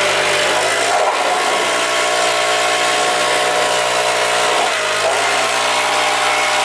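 A power tool motor running loudly and steadily, its whine dipping briefly in pitch twice as it is loaded, then cutting off abruptly.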